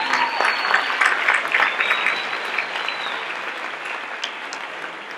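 Audience applauding, loudest at the start and slowly dying down.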